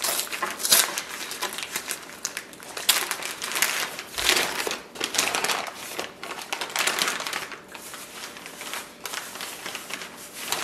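Plastic bag of shrimp crinkling and rustling as it is handled, in an uneven run of rustles.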